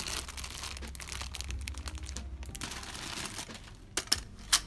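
Clear plastic wrapping crinkling and rustling as a shrink-wrapped stack of plastic critter-keeper enclosures is handled. Near the end come three sharp clicks.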